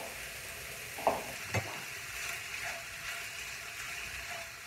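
Diced knacki sausages and onion sizzling steadily in a frying pan, with a couple of short knocks about a second in and a spatula stirring through the pan near the end.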